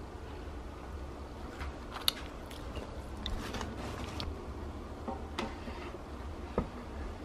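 Scattered light clicks, taps and rustles of handling over a low steady hum, with two sharper knocks, one about two seconds in and one near the end.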